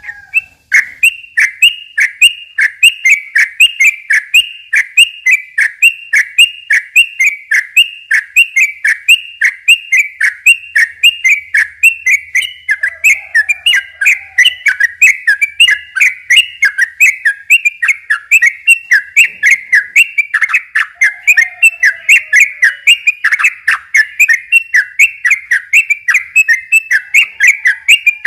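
Sooty-headed bulbul (trucukan) singing a long, unbroken string of quick, loud, downslurred whistled notes, about three a second.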